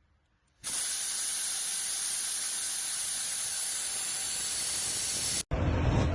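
A steady pressurised hiss, like a spray or air jet, that starts abruptly under a second in and cuts off abruptly about five and a half seconds in. A louder, lower rumbling noise follows right after it.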